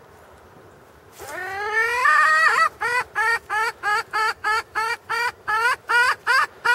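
Chicken squawking: one long call rising in pitch, then a steady run of short, evenly spaced squawks, about three a second.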